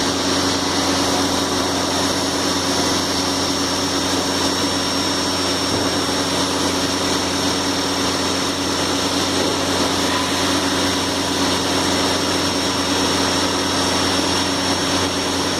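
CNC machining centre running steadily: a constant machine hum with a high, steady whine over it.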